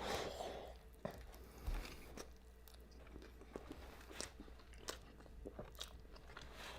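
A crunchy bite into food right at the start, then quiet chewing with small scattered mouth clicks.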